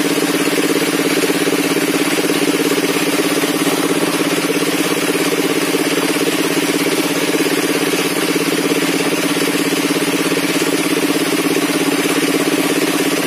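Engine-driven sawmill circular saw table running steadily at idle, with no cut under way.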